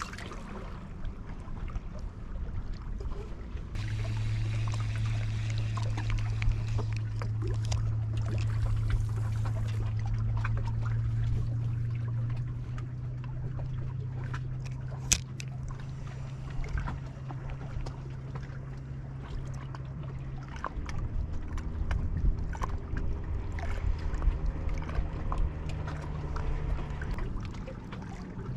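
A boat engine humming steadily from a few seconds in until about two-thirds through, its pitch rising slightly partway, with a shorter hum again near the end. Water laps against the rocks underneath.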